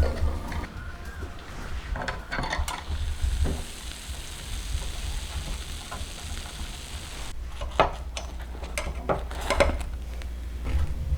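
Light clinks and knocks of objects being handled, with an even hiss lasting about four seconds in the middle.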